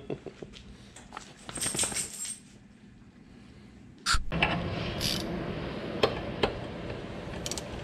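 Metal clinks and rattles from a Harley-Davidson fork tube being worked over an oil drain pan as its old fork oil drains. About four seconds in, under a louder steady background, come a few sharp clicks of a ratchet wrench turning on the fork tube clamped in a vise.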